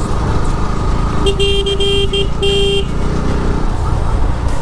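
A vehicle horn honking in a quick run of short beeps that starts about a second in and lasts about a second and a half, over the steady rumble of a moving motorcycle and road wind.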